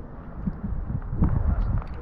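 Blizzard wind buffeting the camera microphone as a low, uneven rumble, with a few footsteps crunching in snow about half a second in and again past the middle.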